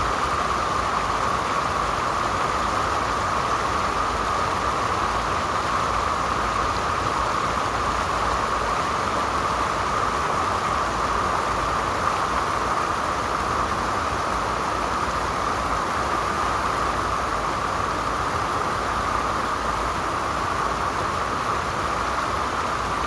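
Mountain stream water rushing steadily, an unbroken even noise.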